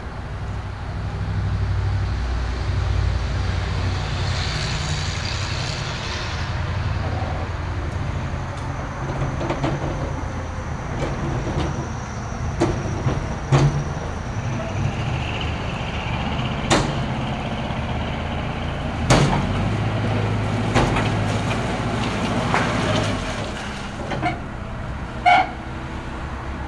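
Cabover semi tractor's diesel engine running as the truck rolls forward a short way. There is a burst of air hiss about four seconds in, a thin steady high whistle through the middle, and several sharp clanks and knocks.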